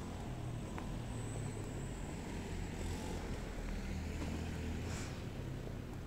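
Steady low rumble of road traffic, with car engines running past.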